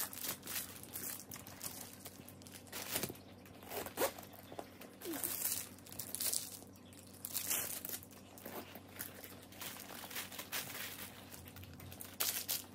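Plastic wrapping crinkling and rustling in irregular bursts as a wrapped bag is handled and unwrapped.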